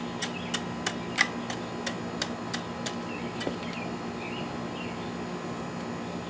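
A hoe blade tapping down loose cold-patch asphalt: quick light taps, about three a second, that stop about halfway through, over a steady low hum.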